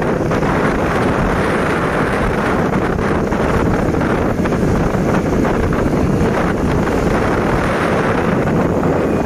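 Wind rushing over the microphone while riding along a road, a loud steady rush that covers the vehicle and traffic noise beneath it.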